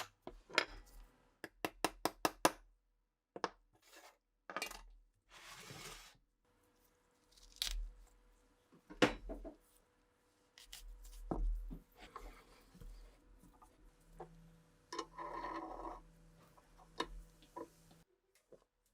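Metal Mosin rifle parts clinking and clicking as they are handled, with a quick run of about half a dozen clicks near the start. Short scraping sounds come a little after the middle and again near the end, and sharp single knocks fall in between.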